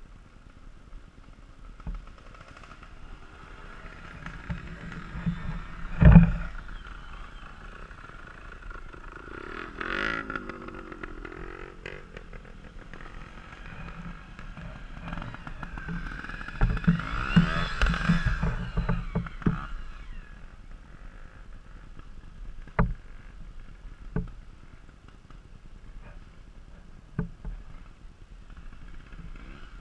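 Trials motorcycle engine revving in short bursts, with a rise and fall in revs about ten seconds in and a longer spell of revving about two-thirds of the way through. A loud sharp thump about six seconds in is the loudest sound, and a few smaller knocks come near the end.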